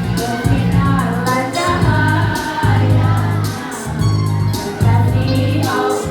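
Choir singing together over an instrumental accompaniment, with a strong bass note that changes about once a second under the voices.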